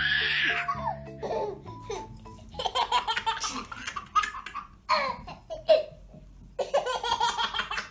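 A baby laughing in repeated bursts, over light background music that stops about two seconds in.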